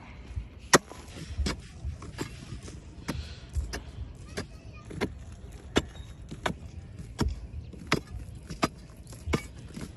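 Digging tools, a spade and a long steel bar, striking dry packed sandy earth at the mouth of a hole, one sharp knock about every three-quarters of a second. The hole is being opened up: it is a rain-washed cavity, small on top and hollow underneath.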